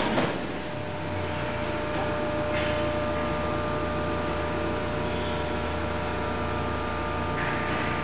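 Large industrial thermoforming machine running on auto cycle: a steady mechanical hum with several held tones, with two short hisses, one about two and a half seconds in and one near the end.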